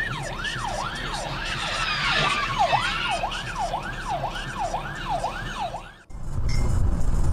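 Emergency vehicle siren sweeping rapidly up and down, about two cycles a second. It cuts off abruptly about six seconds in, and steady road and engine noise follows.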